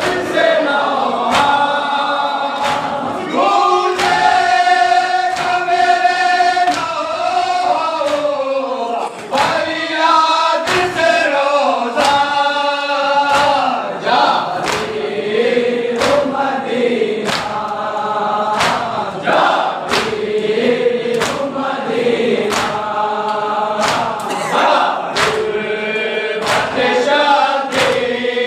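A group of men chanting a noha, an Urdu mourning lament, in chorus, with a sharp slap of matam (hands striking chests) about once a second keeping the beat.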